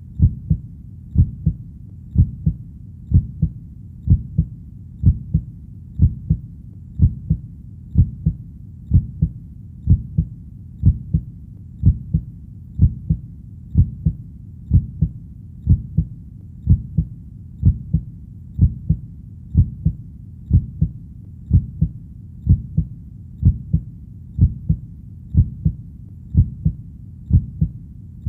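Heartbeat playing steadily as a double beat, a stronger thud followed closely by a softer one, about once a second. The thuds are deep.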